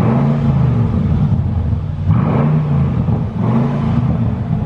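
2006 Mercedes CLS55 AMG's supercharged 5.4-litre V8 revved through its new custom exhaust: three throttle blips in a row, each rising in pitch and falling back.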